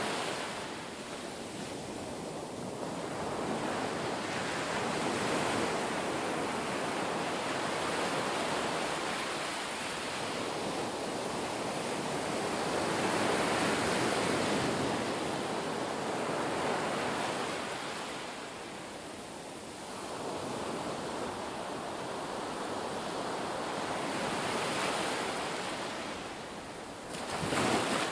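Shallow seawater surging and sloshing, heard underwater, swelling and easing every few seconds. There is a louder surge near the end.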